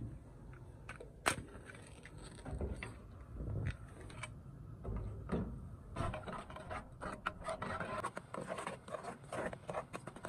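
Metal spoon scraping and clicking against an aluminium saucepan as a thick porridge is stirred, the strokes coming thick and fast in the second half. A single sharp click sounds about a second in.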